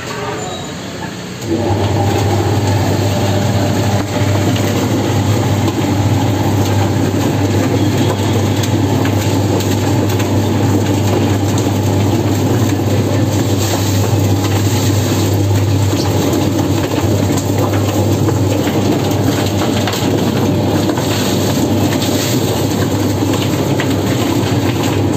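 Electric drum-type chicken plucker starting up about a second and a half in, then running steadily with a low motor hum while the scalded chicken tumbles against the spinning drum's rubber plucking fingers, a dense rattling noise over the hum.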